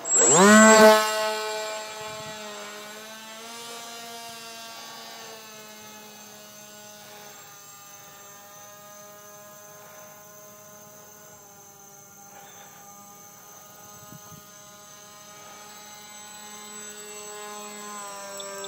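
RC paper airplane's motor and propeller running: a pitched buzz that is loud and rising in pitch at the start, then fainter and wavering in pitch as the plane flies away, and louder again near the end as it comes back.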